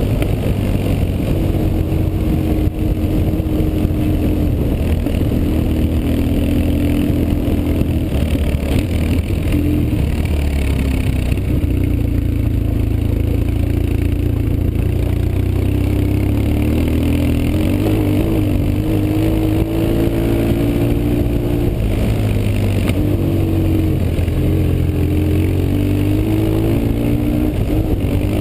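BMW R 1150 GS flat-twin boxer engine running while being ridden, its pitch rising and falling repeatedly with the throttle, over a steady rush of riding noise.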